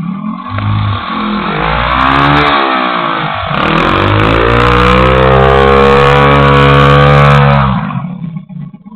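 Small dirt bike engine revving: it climbs and falls back once, then is revved up again and held at high revs for a few seconds before dropping off near the end.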